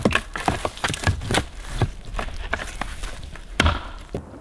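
Dry branches cracking and snapping as a small fir tree is thrashed, a hunter imitating a bull elk raking a tree. Irregular sharp cracks and knocks, the loudest about three and a half seconds in.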